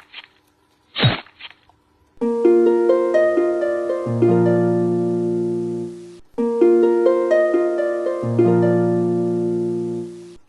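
Background music: a harp-like plucked arpeggio phrase that climbs note by note, with low bass notes joining partway through, played twice. A brief burst of noise comes about a second in, before the music starts.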